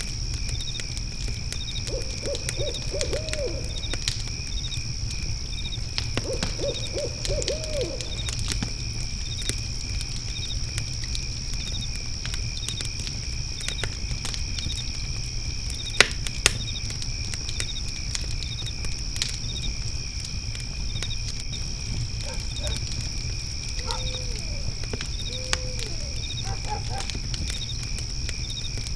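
Night ambience of crickets trilling steadily over a crackling fire pit with scattered pops, one sharper pop about halfway through. An owl hoots in quick series of four or five low notes about two and six seconds in, with a few more hoots near the end.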